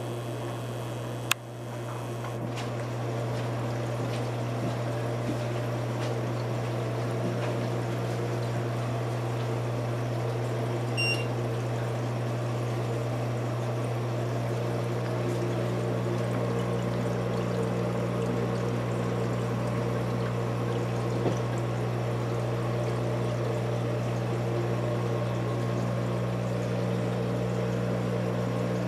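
Reef aquarium's pump humming with water pouring and trickling through the tank and sump plumbing. A click comes about a second in, and the water noise then swells and holds steady as the flow is turned back up.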